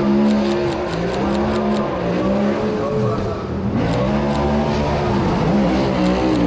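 Drift cars' engines revving hard, their pitch rising and falling as they slide around the track. A rapid run of camera shutter clicks, about five a second, fills the first two seconds, with a few more clicks later.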